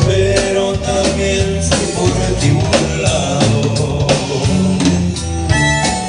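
Live band playing through a PA: drum kit with regular beats under strummed acoustic guitar, with a man singing into the microphone.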